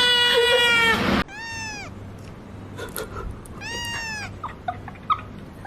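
A loud, long held cry cuts off abruptly about a second in, then a cat meows twice, two short arching meows a couple of seconds apart, with a few faint clicks between them.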